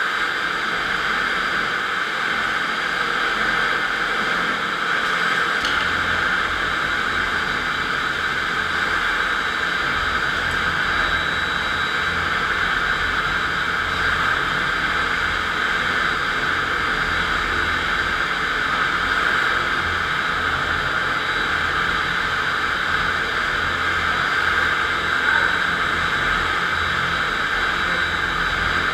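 FastPrep concrete floor grinder running steadily, its 16-grit diamond grinding plates cutting into the concrete floor: a loud, even grinding noise. A low rumble joins about five seconds in.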